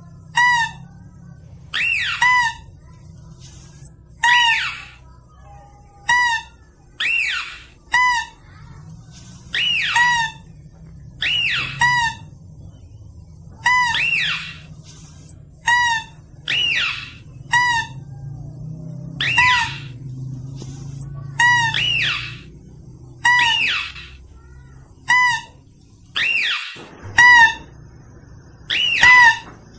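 Mouse-deer lure call (pikat kancil): short squeaky calls, each a brief pitched note followed by a curving squeal, repeated about once every second or two.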